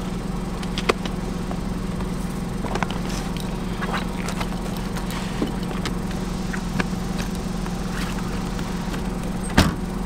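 Luggage being loaded into a car's trunk over a steady low hum, with scattered light knocks and one loud thud near the end as the trunk lid is slammed shut.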